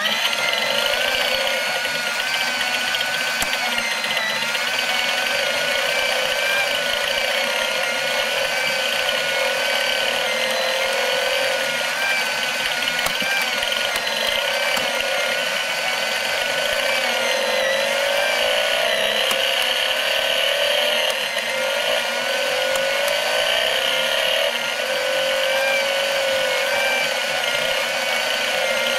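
Small electric motor driving the plastic gears and crank mechanism of a BMW R90S engine model kit, a steady whirring whine with gear chatter whose pitch wavers slightly. It starts abruptly as the model is switched on.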